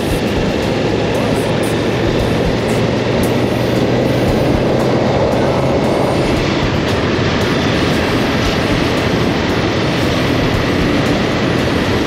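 KTM 1290 motorcycle's V-twin engine running steadily under way, mixed with heavy wind and road rush over the camera's microphone.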